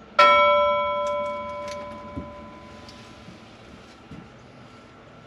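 A single bell-like metallic ding: struck once about a quarter second in, it rings with several clear tones at once and fades over about two seconds, followed by a few faint clicks.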